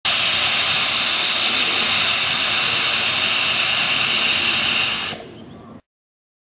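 Miniature 7¼-inch gauge steam locomotive letting off a loud, steady hiss of steam, which drops away sharply about five seconds in.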